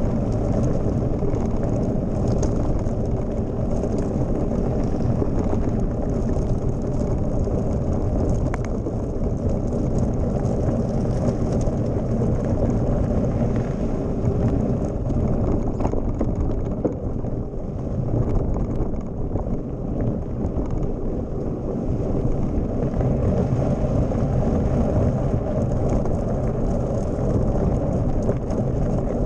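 Mountain bike rolling along a loose gravel road: a steady rush of wind over the camera's microphone, with the tyres crunching on stones and small rattles and clicks from the bike.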